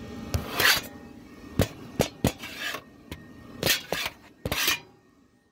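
Irregular knocks, clicks and short scrapes of handling against a Pit Boss portable pellet grill's steel lid and control panel, over a faint steady hum of the grill's fan. It drops to near silence just before the end.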